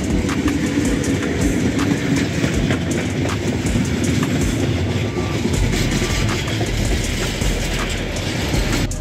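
Freight train of steel-coil flat wagons and tank wagons running past at speed on the adjacent track, its wheels clacking over the rail joints over a steady rumble.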